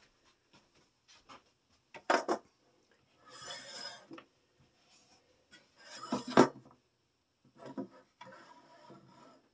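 Kitchenware being handled on a counter: a metal muffin tin set down, a plastic mixing bowl moved, and a spoon scraping biscuit batter. Two sharp knocks come about two and six seconds in, the second the loudest, with scraping and rustling between them and near the end.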